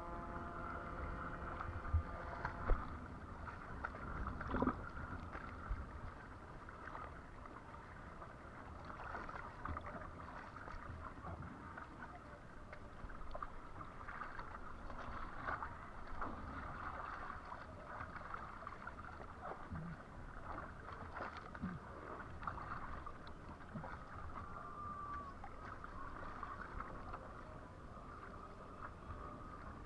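Water washing and splashing against a windsurf board, with wind, as a steady noisy rush broken by occasional small slaps. A faint steady hum fades out in the first two seconds or so.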